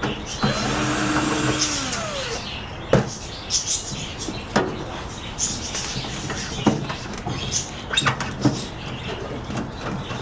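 A power screwdriver whirring for about two seconds, its pitch sliding as it backs out the T15 security Torx screws of a microwave oven's metal cover, then scattered sharp clicks and knocks of screws and the cover being handled.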